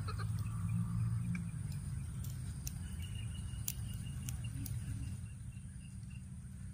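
A steady high insect drone over a low rumble, with a few faint sharp clicks about halfway through.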